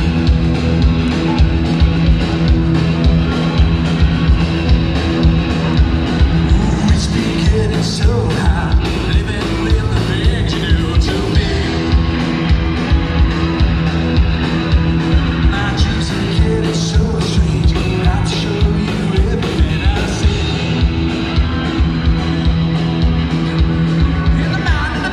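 Live rock band playing loud through the PA: electric guitars, bass and drum kit with a steady beat.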